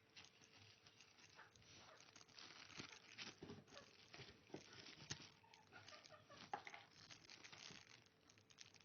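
Faint rustling and crinkling of packaging being handled, with scattered small clicks and knocks, two of them a little louder in the middle.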